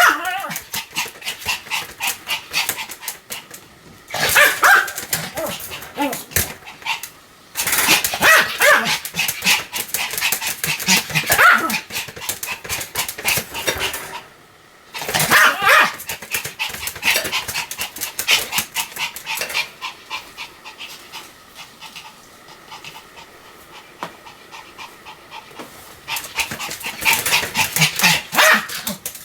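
A Pomeranian barking over and over in rapid runs, with brief pauses about seven and fourteen seconds in. The barking is quieter for a few seconds near the end, then picks up again.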